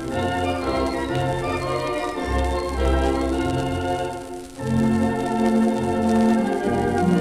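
Standaart 3/10 theatre pipe organ playing a song medley: held full chords over a moving bass line. The sound dips briefly about four and a half seconds in before the next phrase comes in. It is heard through the surface hiss of a 78 rpm record.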